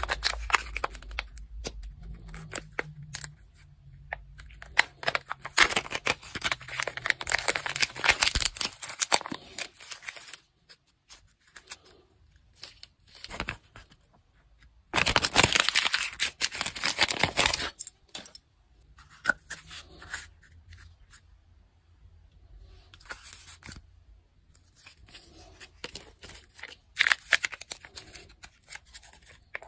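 Kinder egg foil and paper wrappers crinkling and tearing as they are peeled and unfolded by hand, in crackly bursts with quiet pauses between; the loudest burst comes about halfway through.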